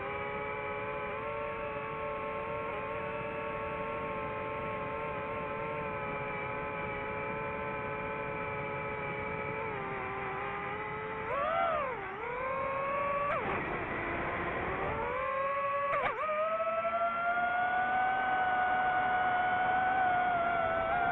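DJI FPV drone's motors and propellers whining steadily. Their pitch dips and swoops sharply a little past halfway as the throttle changes, then rises and holds higher toward the end.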